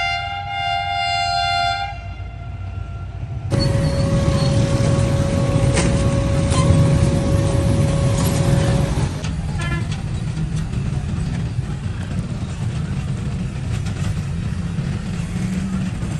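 Train horn sounding a steady multi-tone chord for about two seconds. A few seconds in, a loud rumble of a passing train breaks in suddenly, with a steady high tone and scattered clicks. After about nine seconds it settles to a lower, steady rumble.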